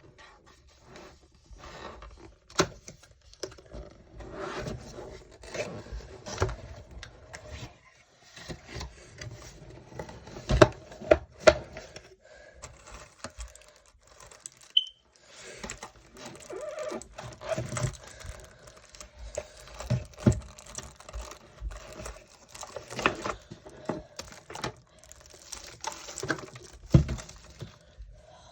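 Keyboard box and packaging being handled and opened: irregular taps, clicks and rustling of cardboard and plastic, with a couple of brief pauses.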